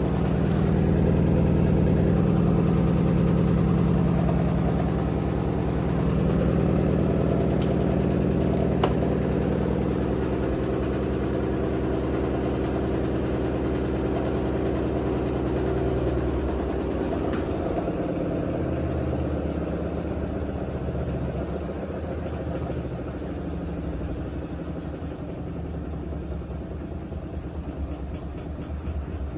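Hotpoint WD860 washer-dryer's drum and motor running a spin with a badly unbalanced load: a steady mechanical hum that drops in speed and pitch about halfway through.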